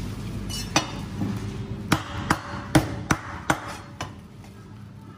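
Cleaver chopping through salmon onto a plastic cutting board: about seven sharp chops at uneven intervals over roughly three seconds.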